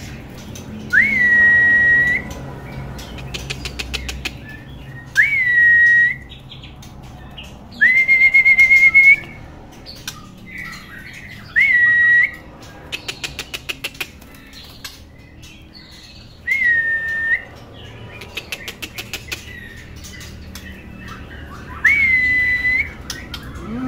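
Young male white-rumped shama (murai batu) calling with long clear whistles, each rising quickly and then held level for about a second, about seven in all. Quick runs of ticking notes come between them.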